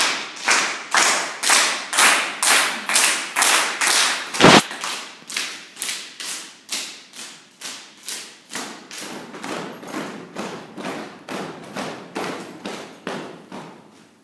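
A group of children and their leader clapping hands together in a steady beat, about two claps a second. One clap about four and a half seconds in is much louder, and the claps grow fainter after the middle.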